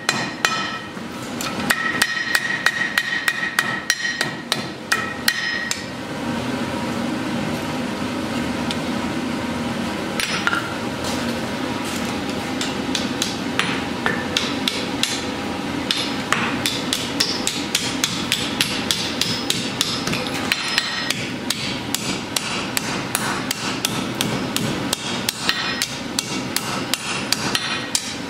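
Blacksmith's hand hammer striking red-hot steel on an anvil in quick series of blows. In the first few seconds the anvil rings with a clear tone after each strike. After a short pause the hammering resumes, duller, over a steady rushing noise.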